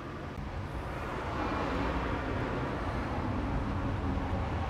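Outdoor traffic noise: a steady rushing rumble of passing road traffic that swells about a second in and stays up.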